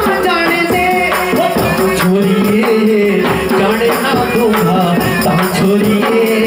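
A solo voice singing a Himachali folk song into a microphone, accompanied by harmonium and percussion keeping a steady beat.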